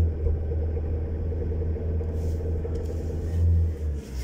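Renault Trafic's diesel engine held at full throttle, running as a steady low hum that hardly climbs in pitch, with one brief swell about three and a half seconds in. The engine will not pick up revs and smokes heavily, a fault whose cause is not yet known.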